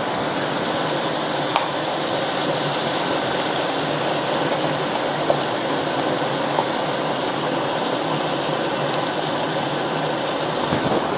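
Frying pan of pork steak and shiitake mushrooms simmering in reduced stock as cream goes in: a steady bubbling sizzle, with a faint tick or two.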